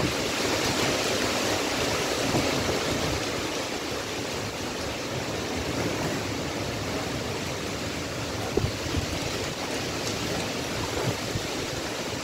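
Strong dust-storm wind rushing through trees and buffeting the microphone, a steady loud rush that eases a little after the first few seconds, with a couple of brief knocks later on.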